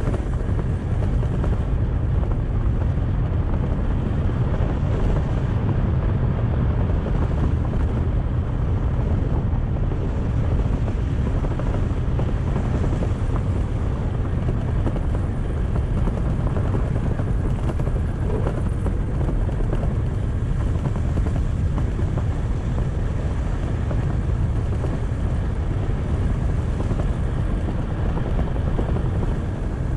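Kymco's engine running steadily while under way, heard as a steady low rumble.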